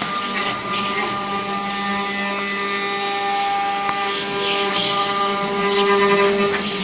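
4-axis, eight-spindle CNC wood carving machine running, a steady mechanical drone of several held tones over a hiss of spinning router spindles cutting wood.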